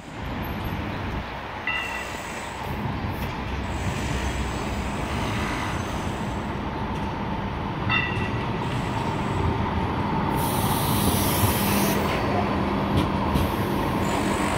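Light-rail tram approaching on street track and passing close by. The steady rumble of wheels on rails grows louder, and a steady hum from its electric drive comes in during the last few seconds as it goes past.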